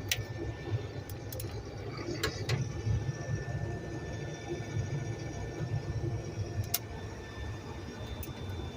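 Combine harvester running steadily while harvesting corn, its sound mostly low, with a few sharp clicks over it.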